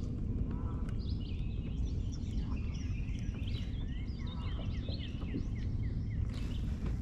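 Several birds singing and calling over a steady low rumble; in the middle one bird gives a quick run of short falling notes.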